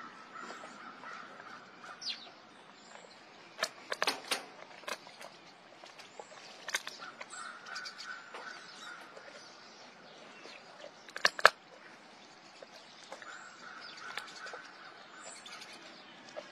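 Tiger cub chewing raw meat on a bone, with sharp bone-crunching cracks. They come in a cluster about four seconds in, and the loudest pair comes about two-thirds of the way through.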